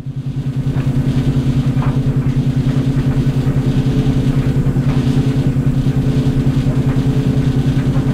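Clothes dryer running: a steady low mechanical hum that pulses rapidly, about ten times a second, with a few faint ticks.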